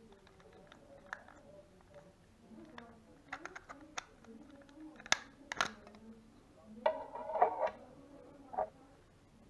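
Small hard plastic parts of a wireless computer mouse clicking and clacking as they are handled during disassembly, with several sharp clicks in quick succession in the middle and a brief scraping clatter near the end. A faint voice is in the background.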